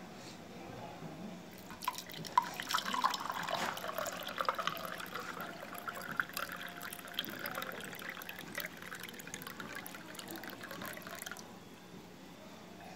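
Water being poured into a glass tumbler, splashing and trickling into the glass. It starts a second or two in and stops about two seconds before the end.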